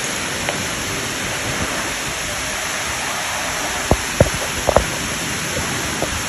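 Steady rush of falling water, with a few short knocks about four to five seconds in.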